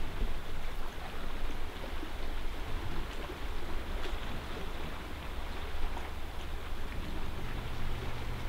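Wind blowing over the microphone, a steady low rumble under an even hiss, with a soft wash of the sea.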